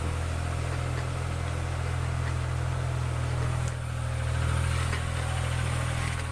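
Geo Metro's engine and road noise heard from inside the cabin while driving with the window down: a steady low drone that swells a little about four seconds in.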